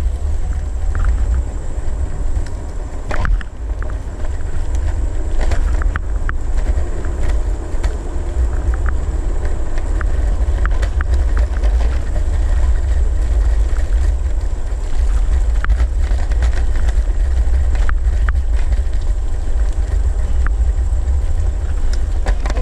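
Wind buffeting the mic of a camera on a moving electric kick scooter, a steady low rumble mixed with road noise, with scattered small clicks and rattles.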